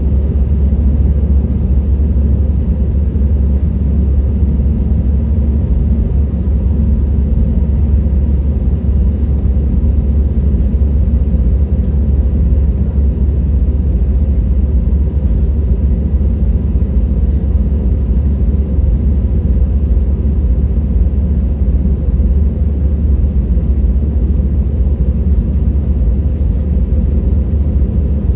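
Steady, loud low rumble of an airliner, unchanging throughout.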